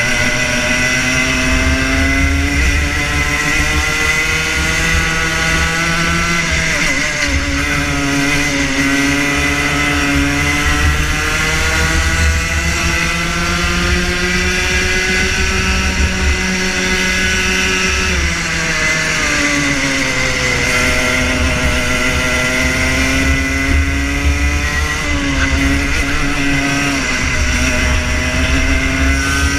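Rotax Junior Max 125cc two-stroke kart engine heard onboard at racing speed, its revs climbing along the straights and falling off several times as the kart slows for corners.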